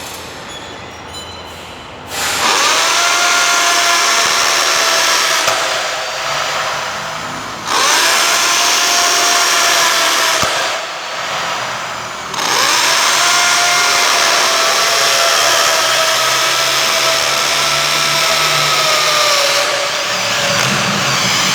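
Electric drill run three times, each run spinning up with a rising whine and then holding a steady pitch that sags slightly under load; the longest run is near the end. This fits drilling holes in the wall for a fan's mounting base.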